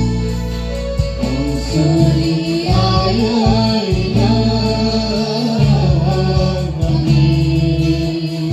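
Gospel song: a voice singing over guitar and held bass notes, steady throughout.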